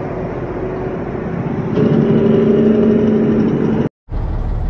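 Semi truck diesel engine running, growing louder about two seconds in. It cuts off in a short gap of silence near the end, and a steadier low engine hum follows.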